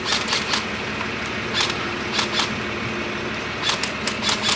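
A truck's diesel engine idling steadily, with sharp snapping clicks over it in small irregular groups.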